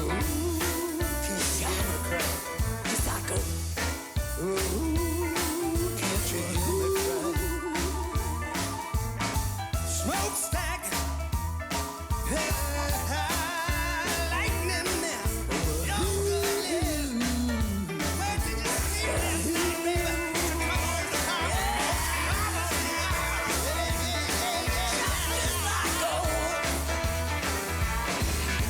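Live blues-rock band music: electric guitar over a steady bass and drum beat, with singing.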